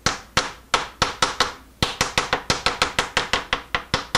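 Ball-peen hammer tapping aluminium workpieces down in a machine vise, seating them against the vise base before it is tightened. Sharp, ringing metal taps: a few spaced ones, a brief pause just under two seconds in, then quick, even tapping at about five or six a second.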